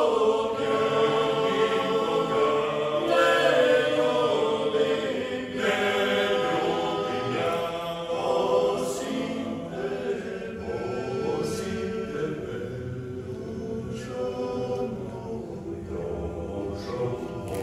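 Men's folk vocal group singing a cappella in multi-part harmony, a Dalmatian folk song, getting gradually softer toward the end.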